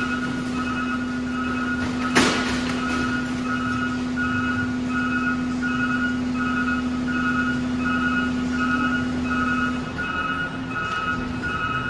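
Garbage truck unloading into a transfer pit: a vehicle alarm beeps at a steady, even rhythm over the steady hum of the truck's engine and hydraulics, which cuts off about ten seconds in. A single loud bang comes about two seconds in.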